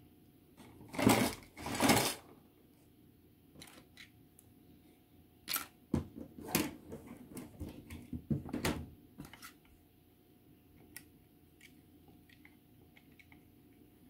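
Plastic model kit parts held together with masking tape being handled: two short rustling scrapes about a second apart near the start, then a run of light clicks and taps, and scattered faint ticks near the end.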